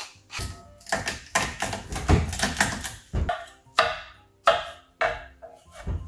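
Chef's knife cutting a garlic clove on a wooden cutting board: a quick run of knocks on the board, then a few separate chops about half a second apart.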